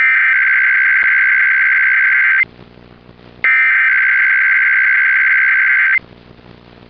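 Emergency Alert System SAME header data bursts: two long, loud, buzzing electronic screeches of rapidly switching high tones, about a second apart, each lasting about two and a half seconds. They encode the start of a required weekly test.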